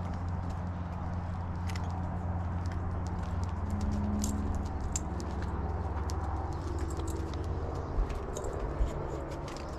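Footsteps on a paving-stone driveway, a run of light hard steps over a steady low hum. Two low thumps come near the end.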